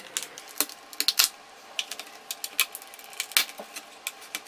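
Irregular sharp plastic clicks and snaps as a laptop LCD panel is worked free from the tape and glue holding it in the plastic lid.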